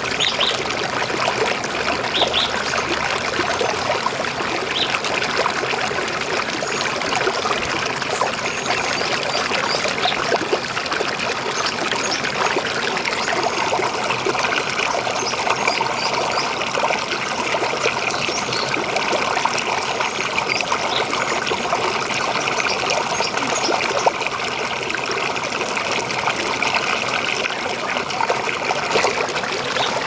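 River water flowing in a steady, unbroken babbling rush.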